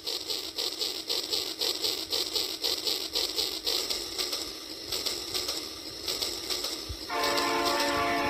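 Battery-powered toy steam train running along its track with a fast, even chugging beat, then about seven seconds in its horn sounds, a steady held blast.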